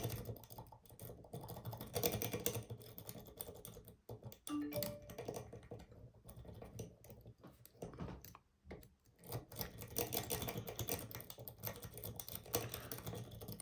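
Steel lock pick working the pins of a Union 6-pin oval cylinder under light turning tension: rapid, irregular light clicks and scratches, in short runs with brief pauses.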